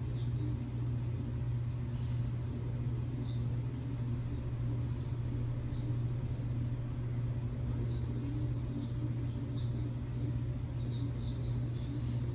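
A steady low hum with no change in pitch or level. Faint, short high-pitched chirps come now and then over it, more of them near the end.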